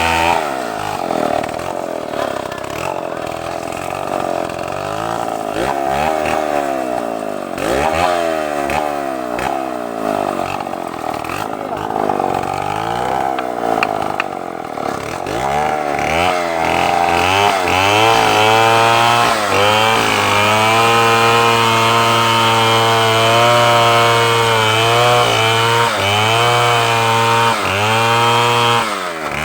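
Two-stroke chainsaw engine revving up and down over and over, then held at a steady high speed through the second half while cutting wood, with a brief drop in revs near the end.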